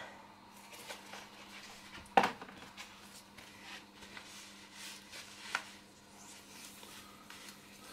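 Light rustling and handling of an inflatable vinyl ring-toss ring and flamingos as they are fitted onto a head. There are two sharper knocks, one about two seconds in and one about five and a half seconds in.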